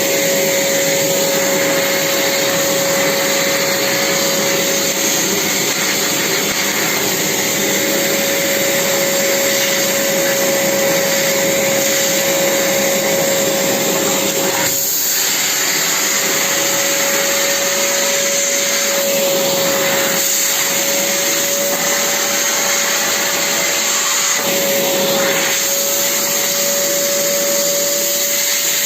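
Vacuum cleaner running steadily: a constant motor whine over a rush of air, with a few brief dips in the sound partway through.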